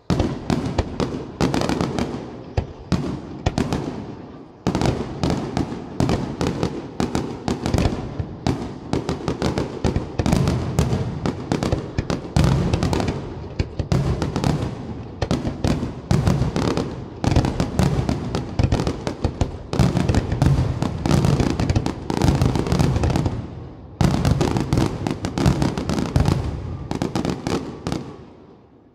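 Fireworks display: a rapid, near-continuous barrage of aerial shell bursts with crackle. It starts abruptly, dips briefly about four and a half seconds in and again about 24 seconds in, and dies away just before the end.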